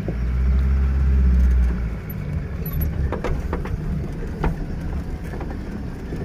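Safari jeep engine revving as the vehicle pulls away, loudest for the first two seconds, then running steadily along a rough dirt track with a few short knocks and rattles from the bodywork.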